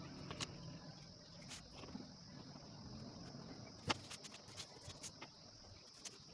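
Faint rustling and a few scattered sharp clicks as a stack of coloured paper sheets is handled and gathered together, the loudest click about four seconds in. A steady high-pitched hum runs underneath.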